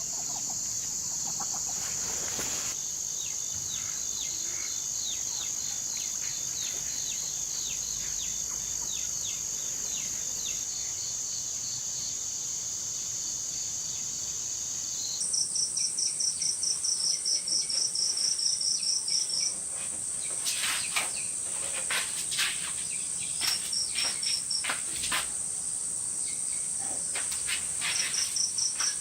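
Insects chirring: a steady high-pitched drone that changes abruptly about halfway through to a higher drone with runs of quick pulsed chirps, about four a second. A few short sharp sounds stand out here and there.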